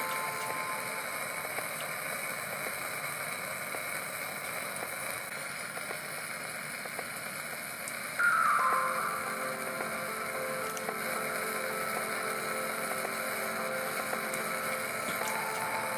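MIG welding arc from a robot-held torch, a steady crackle and hiss. It gets louder about halfway in.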